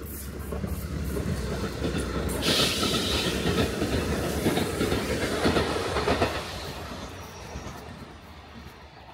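A train passing close by: it grows louder as it approaches, is loudest through the middle, and fades away near the end.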